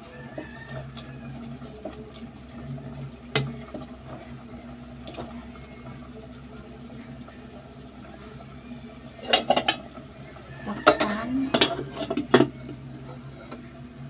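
Aluminium cooking pot being stirred with a wooden spatula, with a single sharp knock a few seconds in. About nine seconds in comes a run of metallic clatters and clinks as the pot's aluminium lid is put on.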